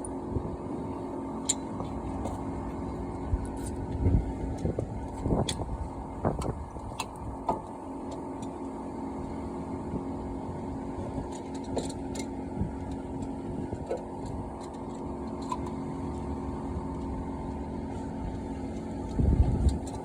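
A steady low mechanical hum with scattered light clicks and knocks of hand tools at work, a heavier knock near the end.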